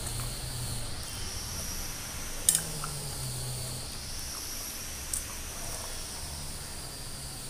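Eating by hand: fingers mashing and mixing rice with egg curry on a stainless steel plate, then a mouthful being chewed, with a sharp click about two and a half seconds in and a smaller one about five seconds in. A steady high insect chorus runs behind.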